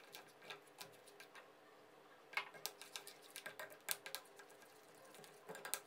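Faint ticks and clicks of a metal spoon knocking and scraping against a glass bowl while flour and ice water are stirred into tempura batter. The clicks are sparse at first and come most often between about two and four seconds in.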